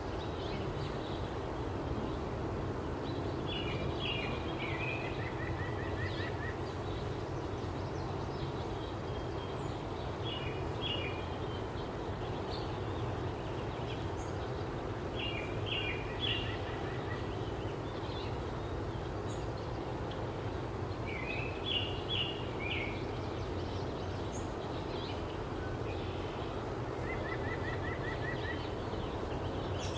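A songbird repeating the same short song about five times, every five or six seconds: a few quick high notes followed by a fast trill. Under it, a steady low background rumble.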